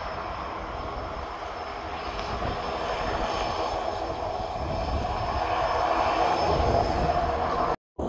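Jet airliner's engines at takeoff thrust during the takeoff roll: a steady roar with a faint whine in it, growing louder toward the end, then cut off suddenly.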